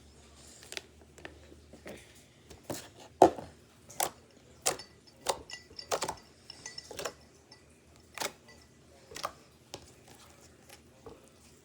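A series of sharp clicks and taps at uneven spacing, about a dozen over several seconds, the loudest a little past three seconds in: small hard objects being handled and set down.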